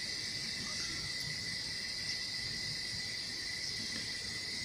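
Steady faint high-pitched hiss with a thin constant whine, and one small tick about two seconds in.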